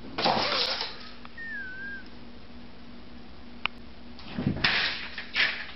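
A cat meowing briefly near the start, with short noisy bursts later on.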